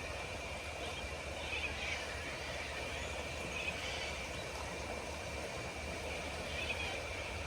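Dusk bush ambience: a steady high-pitched insect chorus, with a few brief chirping calls over it and a low rumble underneath.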